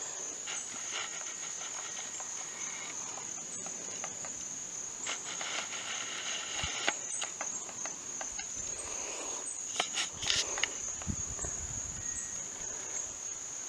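Insect chorus: a steady, even high-pitched drone, with a few scattered short taps and rustles over it.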